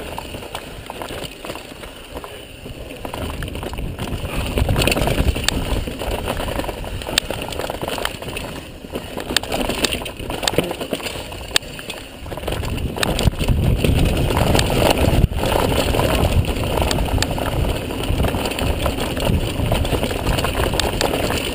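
Wind buffeting the microphone and mountain-bike tyres rolling over a dirt trail during a fast descent, with scattered clicks and rattles from the bike. It grows louder about two-thirds of the way through.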